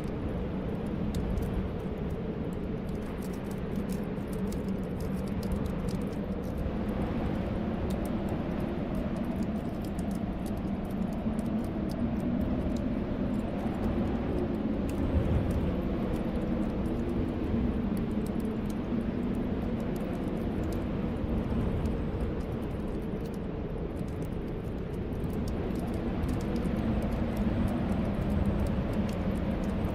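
Snowstorm wind blowing steadily with a low, wavering whistle, over the faint scattered crackle of a fireplace.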